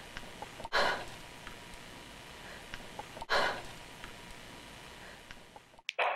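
A person breathing heavily, two breathy exhalations about two and a half seconds apart over a low hiss. The sound cuts out just before the end.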